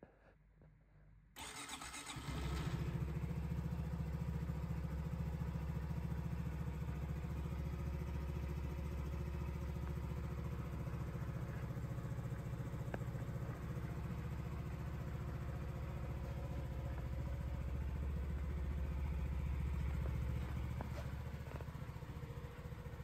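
Honda Dax 125's air-cooled single-cylinder four-stroke engine starting about a second and a half in, catching within a second and settling into a steady idle.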